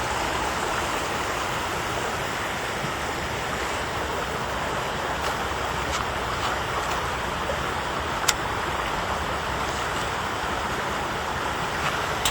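Mountain stream rushing steadily over rocks, with a sharp click about eight seconds in.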